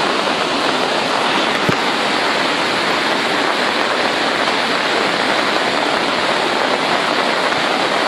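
Overflowing river in flash flood: a muddy torrent rushing and churning past, a steady, dense sound of heavy moving water.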